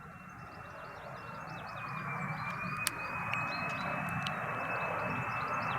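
Military jet aircraft approaching, its engine noise growing steadily louder, with a high whine that wavers slightly in pitch.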